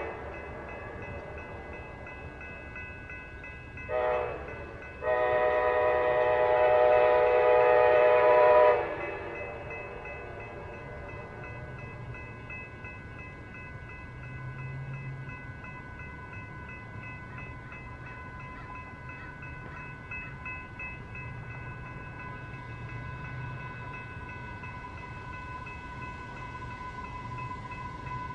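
Approaching Amtrak passenger locomotive's air horn sounding a short blast and then a long blast of several tones together. Afterwards a fainter steady ringing tone and a low rumble carry on as the train draws nearer.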